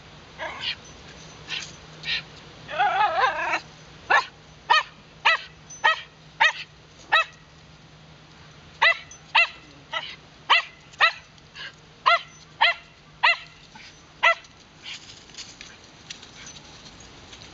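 Wire fox terrier barking: a wavering whine, then short, sharp barks about two a second in two runs with a short pause between.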